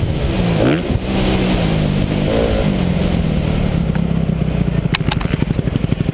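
250cc Honda motocross bike engine revving and easing off, its pitch rising and falling, then dropping to a low, fast, even pulsing about five seconds in as the bike slows, with a few sharp clicks near the end.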